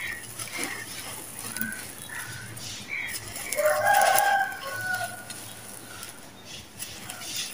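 A rooster crows once about halfway through, the loudest sound here, with a few shorter chicken calls around it. Under them runs the soft hiss and crumble of dry red sand-cement powder pouring from hands onto cement blocks.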